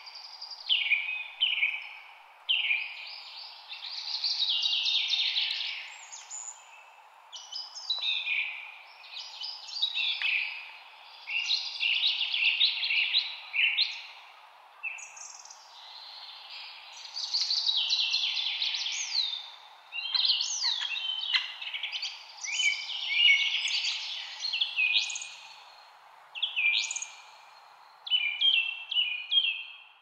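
Several songbirds singing and calling over one another: quick chirps, trills and sweeping whistles, one phrase after another with short gaps, over a steady low background hiss.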